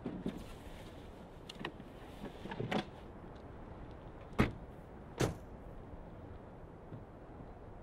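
A small hatchback's tailgate and driver's door slammed shut: two sharp thuds under a second apart, about halfway through. Before them come a few lighter clunks as a spare wheel is loaded into the boot.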